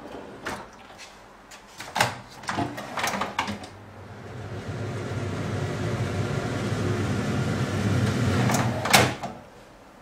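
A kitchen cutlery drawer rattles and is pushed shut with a few knocks. An extractor fan in a range hood then starts up and runs steadily for about five seconds. It stops after a loud click near the end.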